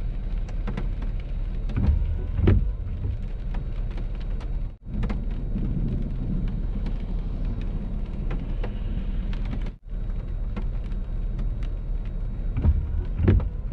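Heavy rain pattering on a car, with many sharp drop clicks over a steady wash, and low rumbles swelling about two seconds in and again near the end. The sound cuts out briefly twice.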